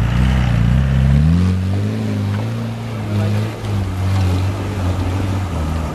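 Land Rover Discovery 4x4's engine revving up, its pitch rising over the first second or so, then running steadily under load as the truck climbs a steep, loose dirt slope.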